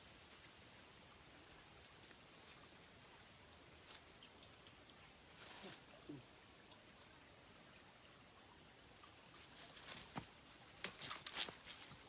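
Insects, crickets, chirring steadily on two high pitches, with a quick run of sharp clicks and knocks near the end.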